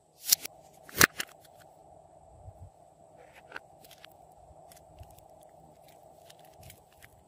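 Two sharp plastic clicks about a second apart near the start, as a clay block is pried out of a clear plastic tray. A few faint ticks and soft handling of clay follow.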